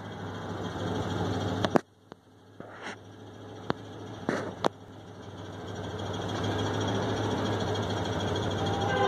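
Steady low engine rumble with a few sharp clicks and knocks, most of them between about one and a half and five seconds in. The rumble slowly grows louder toward the end.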